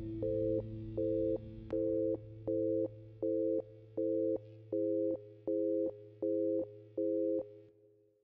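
A pulsing electronic tone: a chord of steady notes switches on and off about every 0.7 s over a low hum. It fades out just before the end.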